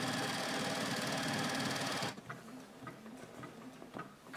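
Juki HZL-UX8 computerised sewing machine stitching a buttonhole at a steady speed, stopping abruptly about two seconds in; a few faint clicks follow.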